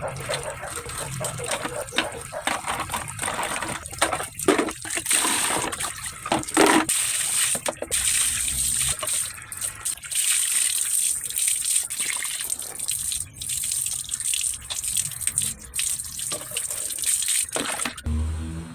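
Running water gushing and splashing unevenly, the sound of washing under a running tap.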